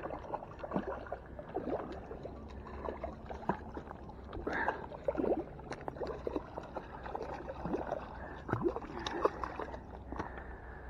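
Faint water gurgling and sloshing with many small, irregular knocks and clicks over a steady low rumble.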